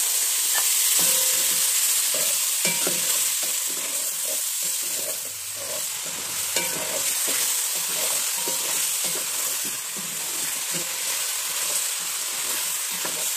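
Beef ribs and ground spice paste frying in oil in a metal pot, with a steady sizzle. A wooden spatula stirs them, scraping and knocking against the pot.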